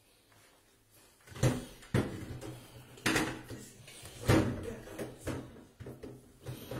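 About six separate dull knocks and clunks of kitchen items being handled and set down, starting about a second and a half in.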